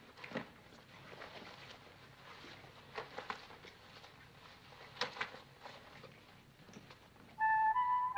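Soft rustles and a few clicks of rubber gas masks and their straps being handled and pulled on. Near the end, a wall keypad is pressed and starts sounding a short run of electronic tones at different pitches, like a little tune.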